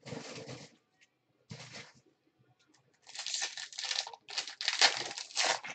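A 2015 Panini Prizm baseball card pack's foil wrapper being torn open and crinkled by hand: two short rustles, then about three seconds of steady crinkling and tearing in the second half.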